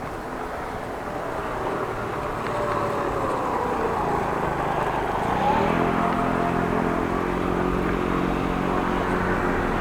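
A car approaching and passing close by. Its engine grows steadily louder, and from about halfway through it holds a steady low drone.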